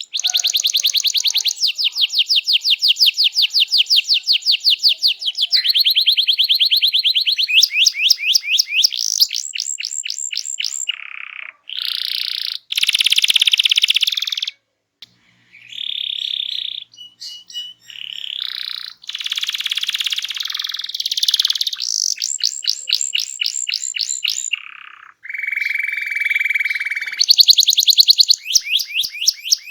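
Domestic canary in full, hard-driven song: long runs of fast rattling trills and rapidly repeated notes, changing from phrase to phrase. There is a short break about halfway through, and a steady lower whistled note late on.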